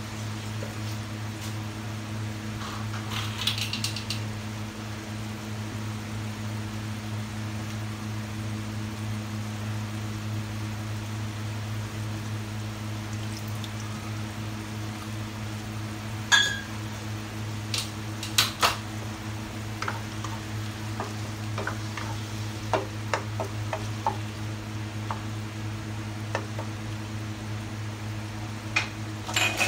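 Sea cucumber adobo simmering in a wok on a gas stove: scattered sharp pops and clicks from the bubbling pan, coming more often from about halfway through, over a steady low hum.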